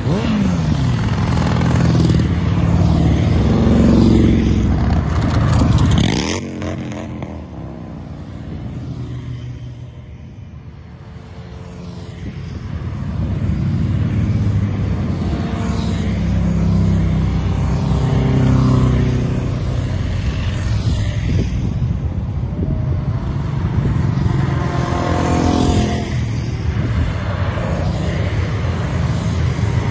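Motorcycles riding past one after another, each engine's note falling in pitch as it goes by. The sound eases off for a few seconds about seven seconds in, then builds again as more bikes arrive.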